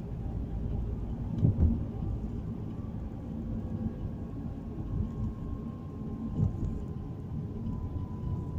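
Low, steady rumble of a car's road and engine noise heard inside the cabin, with a couple of louder thumps about one and a half seconds in.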